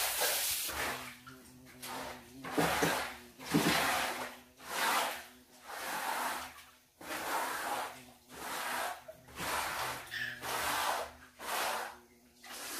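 A wet, soapy tiled floor being scrubbed in regular strokes, a swish of water about once a second.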